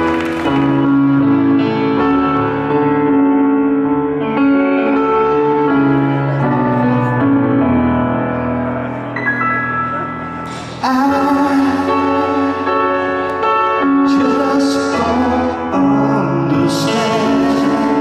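Live rock band playing a slow passage of held keyboard chords with singing; the music dips, then swells back to full volume suddenly about eleven seconds in.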